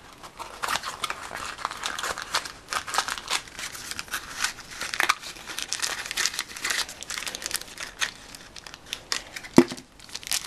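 Crinkly plastic wrapping being handled and torn open to get a small figure out of its packet, in irregular crackles, with one sharp click near the end.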